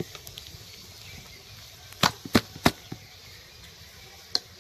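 Hand working wet ground urad dal paste in a steel bowl: three quick sharp slaps about two seconds in and one more near the end.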